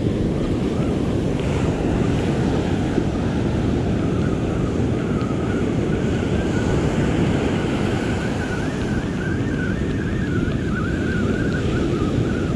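Ocean surf washing up the beach in a steady rush, with wind rumbling on the microphone.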